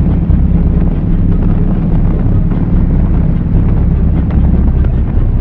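Kawasaki motorcycle cruising at road speed, with heavy wind buffeting on the microphone over the steady drone of the engine.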